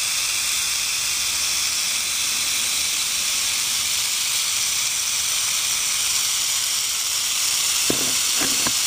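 Western diamondback rattlesnake rattling its tail: a steady, high dry buzz, the snake's defensive warning. A few brief knocks near the end.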